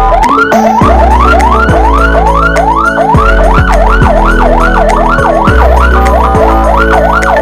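Electronic emergency-vehicle siren running a fast yelp: a tone sweeps up again and again, about two and a half times a second. About halfway through it switches to a quick up-and-down warble, then goes back to rising sweeps near the end. Under it runs a lower layer of steady tones broken by falling sweeps.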